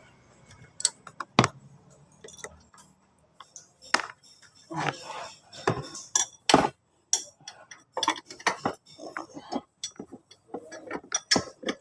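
Irregular metallic clicks, clinks and light knocks of hand tools and small metal engine parts being handled and fitted during reassembly of a scooter engine's top end.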